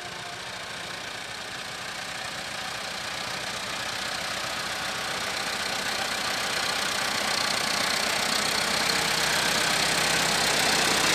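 Massey Ferguson 385 tractor's four-cylinder diesel engine running as it pushes sand with its front blade, growing steadily louder as it comes close.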